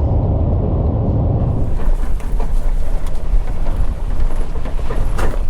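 A vehicle driving, first a heavy low rumble, then after about a second and a half a thinner sound with scattered knocks and clicks.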